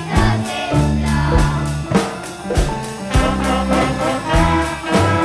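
Children's music-school ensemble playing a song with a steady beat and a strong bass line, with guitars, cello and wind instruments.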